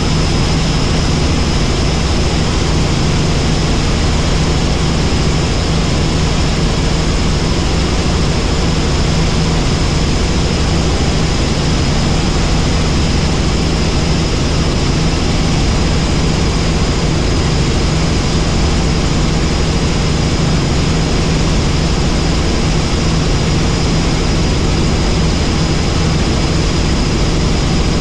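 Helicopter in flight: loud, steady rotor and engine noise with a thin high whine over it.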